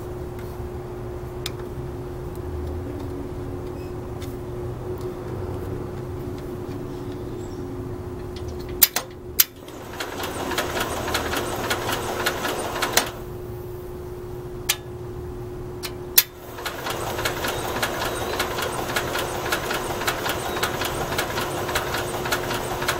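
Bolens 1050 tractor's engine being cranked by its starter without firing, first for about three seconds and then again for about seven, as a fast, even churning. A couple of sharp clicks come just before. The engine is getting no spark, which the owner traces to the points.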